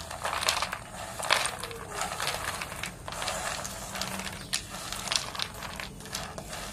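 Crisp deep-fried maida snacks (namkeen kaju) sliding off one plate and tumbling onto another, a dry rattling clatter of many small clicks that comes and goes in handfuls.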